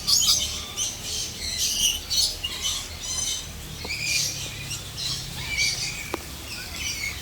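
A flock of birds squawking and chattering together, many short high-pitched calls overlapping without a break.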